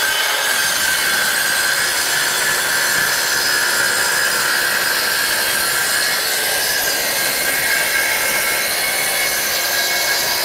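Handheld electric circular saw running steadily at full speed while its blade cuts along a length of worktop, guided by a rail.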